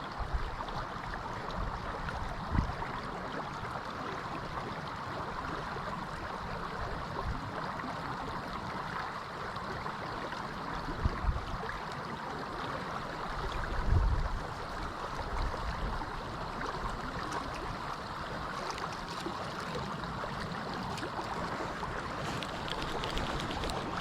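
Steady rushing hiss of lake water, with a few short low thumps on the microphone.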